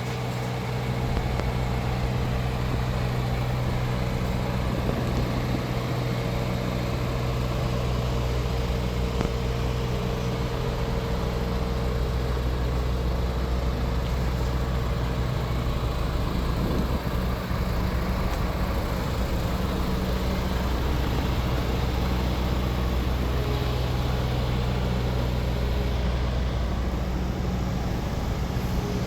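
2016 DAF XF 440 truck's inline-six diesel engine idling steadily, with its air compressor running.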